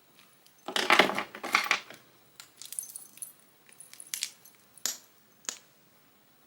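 Small hard objects being handled and rummaged through: a loud clattering rustle about a second in, followed by a scattering of short clicks and taps.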